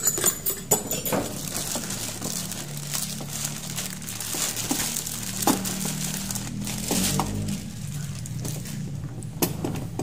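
Clear plastic bag crinkling and rustling as it is handled and pulled off a power tool, with scattered sharp clicks.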